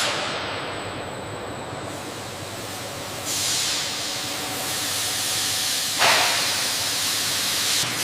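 Steady loud hiss, like escaping air or steam, starting abruptly. It brightens about three seconds in and has a sudden louder rush about six seconds in.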